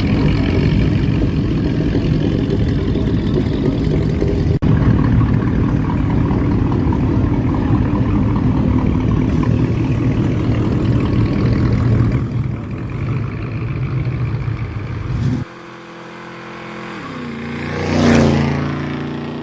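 A car engine running loudly with a deep exhaust rumble. About fifteen seconds in it cuts off abruptly, and another car's engine rises, passes with its pitch dropping, and fades away.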